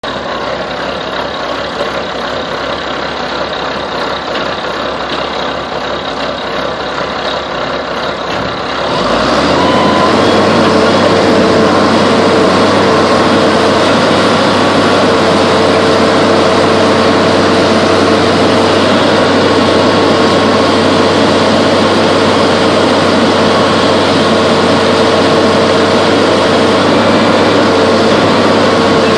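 Log loader's diesel engine heard from inside the cab, running low and then throttling up about nine seconds in to a steady, higher-revving run under hydraulic load as the boom and grapple handle logs, with a steady whine over it.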